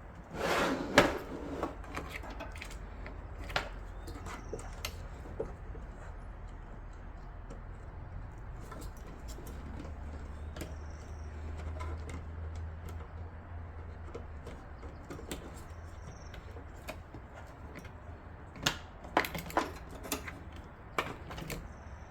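Light clicks, taps and rustling from PC power-supply cables and plastic connectors being handled and routed inside a small computer case, over a low steady hum. A louder spell of handling comes just after the start and another near the end.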